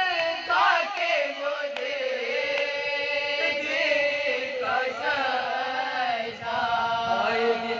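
Women's voices chanting a marsiya, a mourning elegy, together and unaccompanied, with one lead voice close to the microphone and the others joining in.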